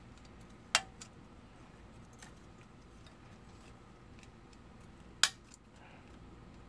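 Two sharp clicks about four and a half seconds apart, with a few faint ticks between them: small plastic model-kit parts and tools being handled on a hobby workbench.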